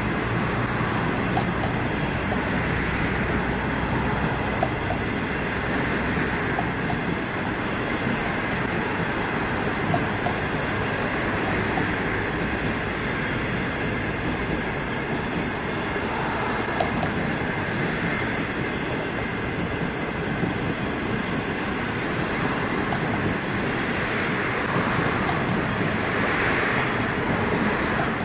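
Green 25G-type passenger coaches rolling past at steady speed: a continuous rumble of wheels on rail with occasional light clicks.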